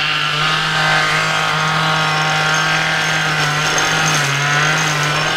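A two-stroke chainsaw running steadily at high revs. Its pitch dips briefly about four seconds in, then comes back up.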